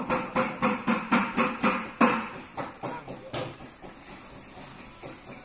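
A quick, even series of sharp knocks or strikes, about four a second, stopping about three and a half seconds in.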